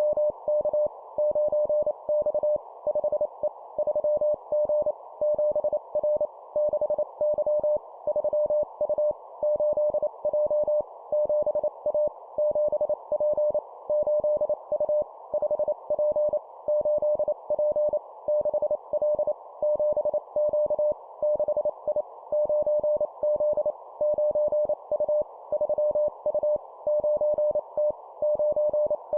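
Morse code (CW) at 25 words per minute: a single steady tone of about 600 Hz keyed on and off in dots and dashes, spelling two-character words of letters and numbers. A steady band of hiss sits under the tone.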